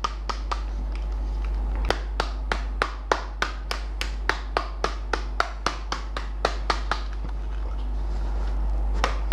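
Hand patting a plastic laser-printer toner cartridge in quick light taps, about four a second, pausing near the end. The tapping loosens toner that has caked inside the cartridge, a fix for faint, light prints.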